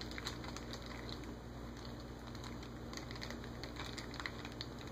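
Faint, scattered crinkles and small crackles of a little sealed blind-box bag being squeezed and felt between the fingers, over a low steady room hum.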